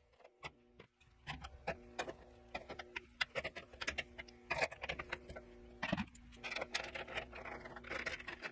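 Knockout on a steel electrical panel being worked loose with pliers and a screwdriver: a run of small metallic clicks, taps and scrapes of tool against sheet metal, with a faint steady hum underneath.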